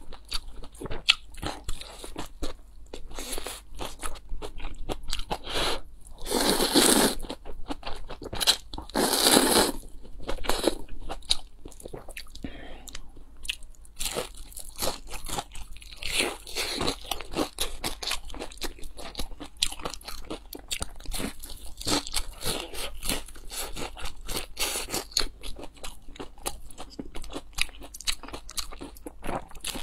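Close-miked eating sounds: noodles slurped in two long bursts about seven and nine seconds in, then many short, sharp bites and wet chewing and crunching of a fried zucchini-and-coriander pancake.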